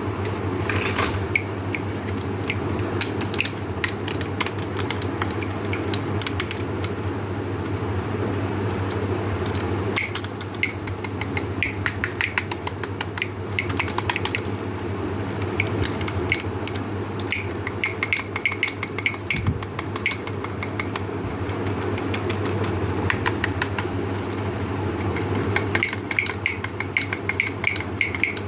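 Small hard candies clicking and clattering against each other and a hard container in dense runs, over a steady low hum.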